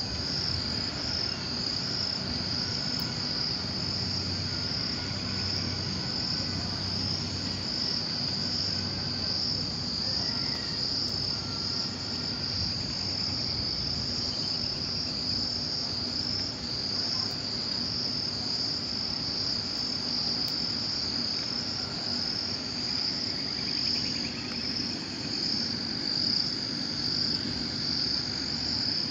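Dense insect chorus in farm vegetation: a steady, high, evenly pulsing trill that runs without a break.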